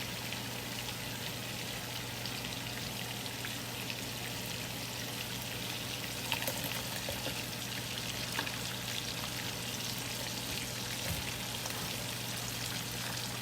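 Food frying in melted butter with minced garlic in a pan: a steady crackling sizzle, with a few sharp clicks, likely of a utensil, about six, eight and a half and eleven seconds in.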